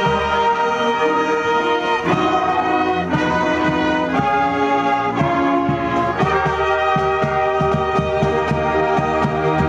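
Marching band playing: brass (trumpets, trombones, saxophones, sousaphone) sounding held chords that change every second or so, over strokes from the drumline.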